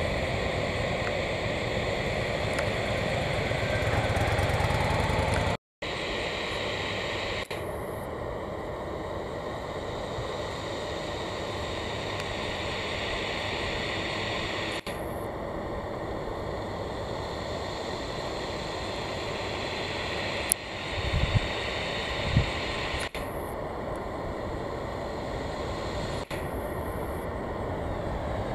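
Steady rushing noise of jet airliner engines as cargo jets taxi and land. The sound breaks off for a moment about a fifth of the way in, and a few low thumps come about three-quarters of the way through.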